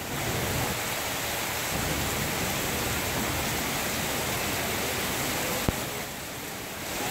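Heavy tropical rain pouring down onto paving and foliage: a dense, steady hiss that eases slightly near the end, with one sharp tap a little before that.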